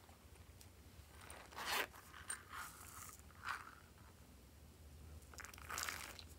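Soft crunching and scraping rustles from a plastic toy container being handled and confetti sprinkles being scattered by hand onto clay and slime in a glass bowl: several short bursts, the last near the end as the sprinkles go in.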